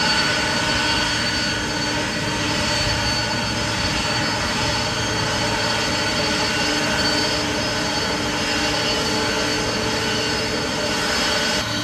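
Jet aircraft engines running loud and steady: a broad rush of engine noise with several steady whining tones on top.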